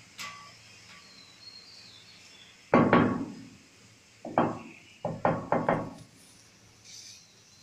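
Mallet knocking on ceramic wall tiles to bed them into the mortar: a loud knock about three seconds in, then a run of five quicker taps.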